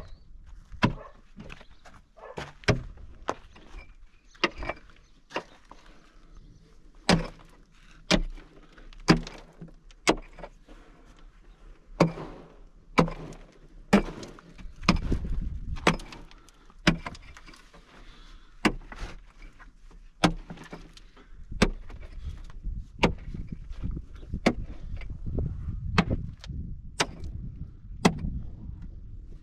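Repeated sharp knocks or impacts, irregular and about one a second, with a low rumble that builds in the second half.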